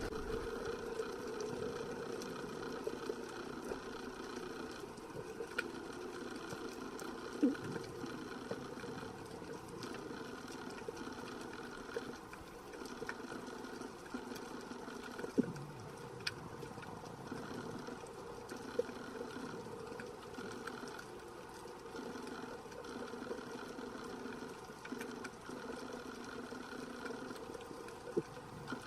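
The sea heard underwater: a steady low drone with scattered faint clicks, and a few louder knocks, at about 7, 15 and 28 seconds in.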